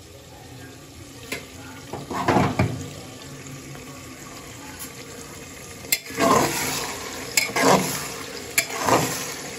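Sliced onions frying in oil in an aluminium pressure cooker and being stirred with a spatula: a sizzling hiss with swishing scrapes, a couple about two seconds in, then roughly one a second from about six seconds in.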